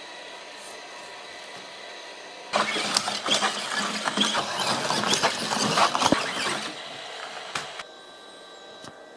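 Sony Aibo robot dog's leg servos and gears clicking and ratcheting in a dense, rapid run as it walks. The run starts about two and a half seconds in, after a steady faint hiss, and stops near the end.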